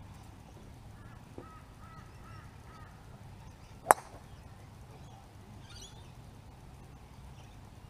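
A golf club striking a ball off the tee: a single sharp crack about four seconds in, over faint bird calls.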